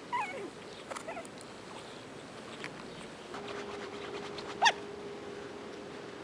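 Malshi puppy vocalising: a couple of short, falling whimpers near the start, then one sharp, loud yip a little over four and a half seconds in.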